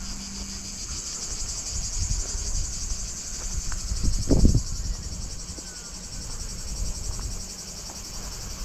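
Steady high-pitched chorus of chirring insects, finely pulsing, with a brief low rumble about four seconds in.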